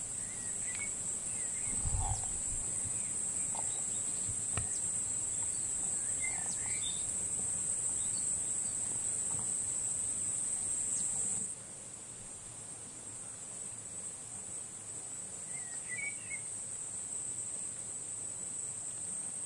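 Steady, high-pitched buzzing of insects stridulating in the grass, which drops abruptly in level a little past halfway. A few faint bird chirps come through now and then.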